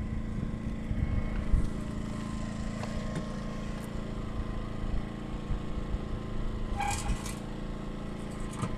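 An engine running steadily at a constant speed, with a few short clinks about a second and a half in and again around seven seconds in.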